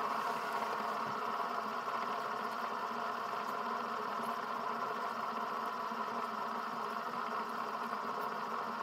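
Fidget spinner spinning freely on a tabletop, its bearing giving a steady whirring drone with several steady tones, twenty-odd seconds into the spin.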